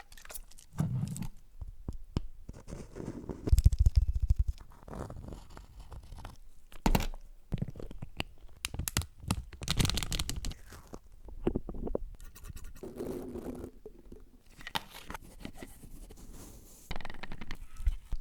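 A quick series of different close-miked ASMR trigger sounds, each lasting a second or two: scratching, scraping, crunching and sharp taps on small objects.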